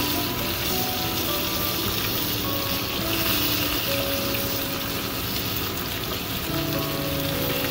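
Round scad (galunggong) frying in hot oil in a pan, sizzling steadily, with soft background music over it.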